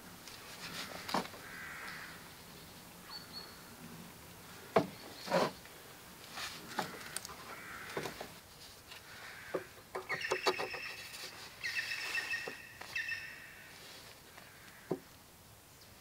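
Knocks and taps of wooden panels and parts being handled on a wooden deck, with a quick run of clicks about two-thirds of the way in. A bird calls twice in the background, near the middle.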